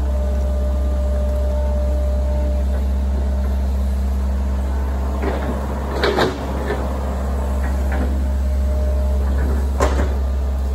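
Hydraulic excavator's diesel engine running steadily as it works, with a few short clanks about six seconds in and again near the end.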